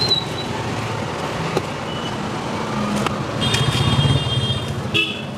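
Street traffic: a steady rumble of passing vehicles, with a short high-pitched beep a little past the middle and a couple of sharp clicks.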